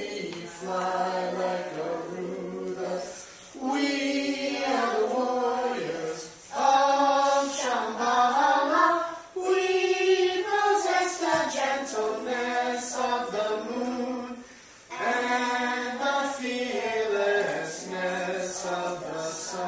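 Children's chorus singing a song in several sung phrases, with brief pauses between them.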